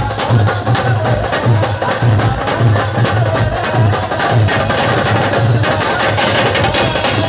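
Loud live band music amplified through a truck-mounted speaker rig, driven by a heavy bass beat about twice a second under bright percussion.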